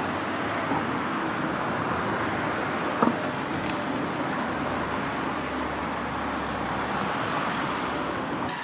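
Steady street and traffic noise, an even hiss-like rumble with no speech, and a single short click about three seconds in.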